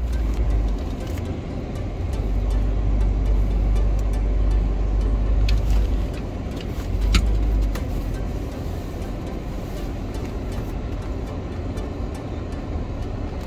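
A vehicle driving, heard from inside the cabin: a steady low rumble that eases off a little about two-thirds of the way in, with a couple of short knocks around the middle.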